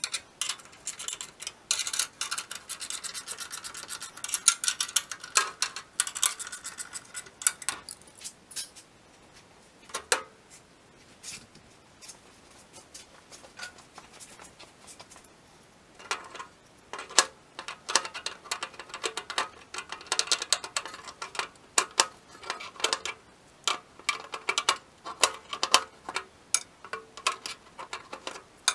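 Close-up hand work on metal parts: rapid scraping, rubbing and small clicks, busiest in the first third and again in the last half, with a quieter stretch in between.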